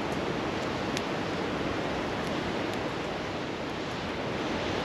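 Steady rushing of river water, with a few light crackles from a wood campfire.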